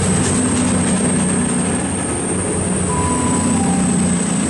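CrossCountry Voyager diesel-electric multiple unit moving past along the platform, its underfloor diesel engines running with a loud, steady hum.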